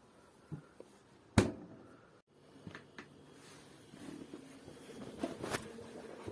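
A few sharp knocks and clicks, the loudest about a second and a half in, then a faint low steady hum from about halfway through.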